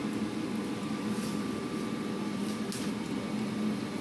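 Steady mechanical hum of bakery machinery, with a faint high tone joining about a second in and two faint brief swishes.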